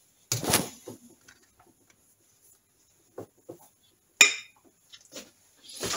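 Hand-handling of small metal parts and wiring at a workbench: a short scraping rustle near the start, a few soft taps, and a sharp metallic clink about four seconds in.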